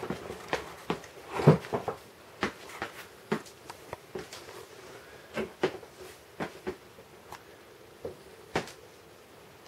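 Irregular soft taps and thumps of a child's steps, turns and small jumps in ballet slippers on a wooden floor, with one louder thump about a second and a half in.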